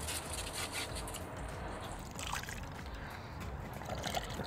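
Diesel sloshing and trickling as the old fuel filter canister is tipped out through a funnel into a glass jar, with a few light handling clicks in the first half.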